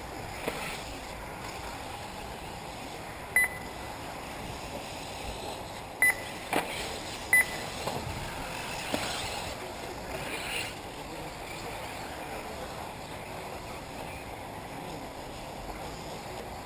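Three short, high electronic beeps, about 3.5, 6 and 7.5 seconds in, over a steady outdoor hiss.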